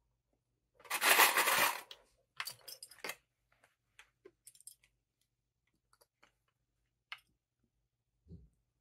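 Fabric and plastic sewing clips being handled: a rustle of about a second, then a few sharp clicks and light taps as clips are snapped onto the fabric edges, with scattered faint ticks afterwards.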